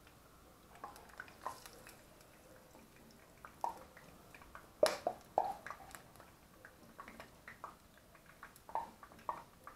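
Scattered light clicks and knocks, a dozen or so at irregular intervals, a few with a brief ring; the loudest comes about five seconds in.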